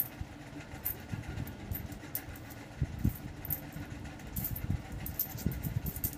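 Peso coins clinking faintly as they are slid and counted by hand on a cloth-covered surface, with a few soft low knocks and a low background hum.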